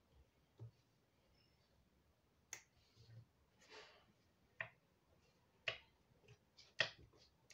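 Playing cards being dealt and turned face up onto a cloth card mat: a handful of sharp card snaps, the loudest near the end, with soft sliding swishes between.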